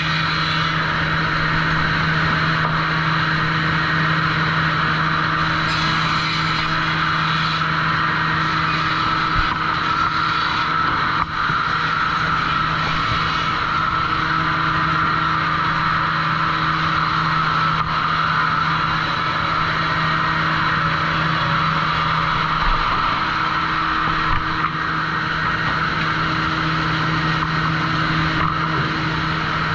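Sawmill machinery running steadily: a constant low hum under a loud even whir, with a few faint knocks.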